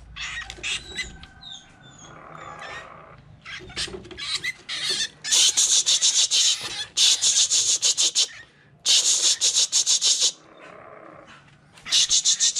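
A small mongoose biting a rat on wire mesh. A few short high squeaks come about a second in, then four loud bursts of harsh, raspy scrabbling and squealing as the rat struggles.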